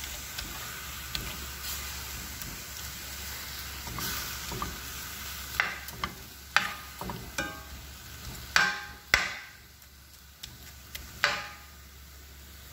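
Crawfish tails sizzling softly in a stainless steel skillet as a spoon stirs them. In the second half there are about half a dozen sharp knocks of the spoon against the pan, each ringing briefly.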